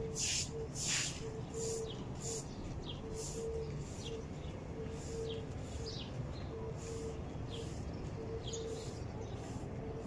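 Plastic-bristled push broom sweeping a concrete street, a short swish at each stroke in a steady rhythm a little under a second apart.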